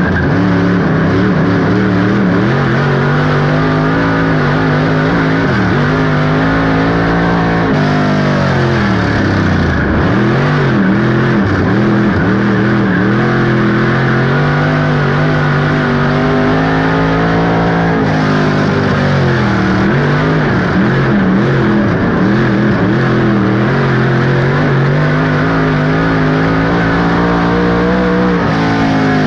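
Dirt-track race car engine heard from inside the car at full race pace, its pitch climbing along each straight, then falling off and climbing again as the driver lifts for each turn, about every ten seconds.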